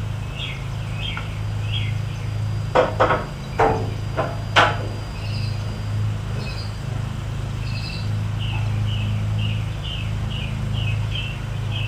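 A handful of sharp knocks about three to five seconds in, from wooden truck-bed boards being handled and set in place. A steady low hum runs underneath, and a bird chirps repeatedly in short falling notes.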